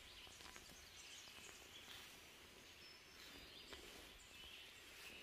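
Near silence: faint outdoor background with a few faint, short bird chirps.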